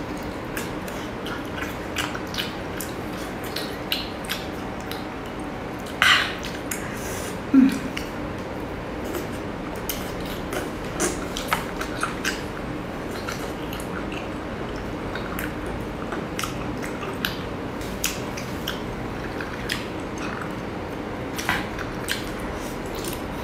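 Close-miked chewing of cooked abalone: scattered small wet mouth clicks and smacks over a steady low hum, with a louder smack about six seconds in and a short low sound a moment later.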